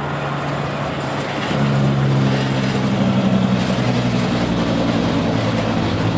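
Car transport truck's diesel engine running steadily as it drives by, with road and tyre noise; it grows louder about a second and a half in.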